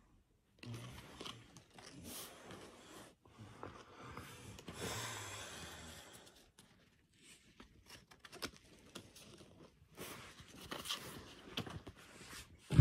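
Pokémon trading cards being handled and laid down on a fabric couch cushion: irregular rustling, sliding and light taps of card stock, with one sharp knock at the end.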